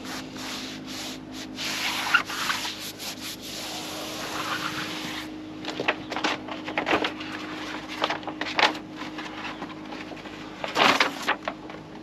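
Paper backing being peeled off the adhesive back of a foam deck pad as the pad is rubbed down by hand. It makes a continuous rustling hiss for about five seconds, then a series of short scrapes and crinkles, loudest near the end.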